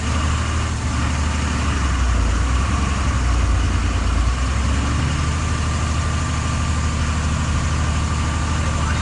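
A vehicle engine running at idle with a steady low hum; its note shifts up a step about five seconds in. A steady rushing hiss runs underneath it.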